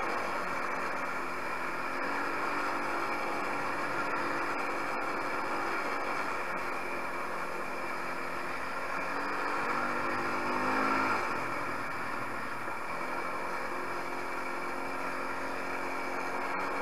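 A 250 cc quad's engine running under way, with a steady rushing noise over it from the onboard camera. The engine note climbs about ten seconds in and drops away sharply about a second later, as the throttle is eased.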